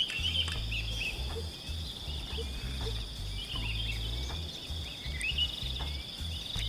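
Steady high-pitched insect buzz, with short bird chirps over it, the most in the first second and about halfway through, and a low uneven rumble beneath.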